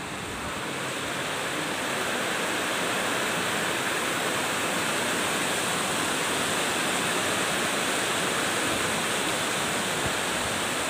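Heavy rain pouring steadily, growing louder over the first couple of seconds and then holding even.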